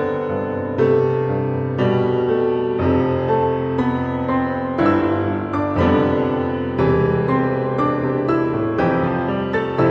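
Background music, with new notes or chords starting about once a second.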